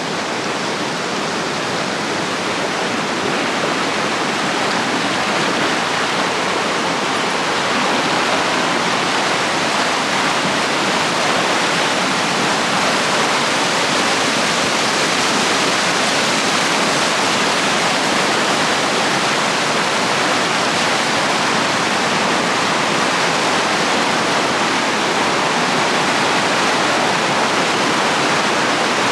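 Rushing water of a mountain river in a gorge: a steady, even rush that grows slightly louder over the first several seconds.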